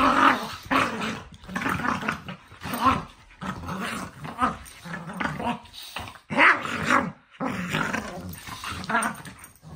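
Two dogs play-fighting, growling in short, irregular bursts as they mouth at each other.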